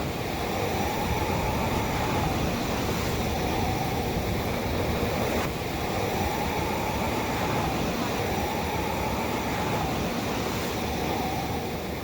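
Steady rushing noise like strong wind, with a faint higher tone that swells and fades about every two seconds.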